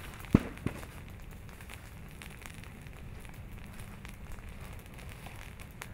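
Leaf litter and orchard debris burning under an advancing lava flow, crackling steadily with small ticks. Two sharp pops come near the start, about a third of a second apart, the first much louder.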